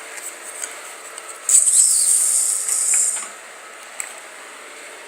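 A loud burst of hissing noise starting about one and a half seconds in and lasting nearly two seconds, then stopping abruptly.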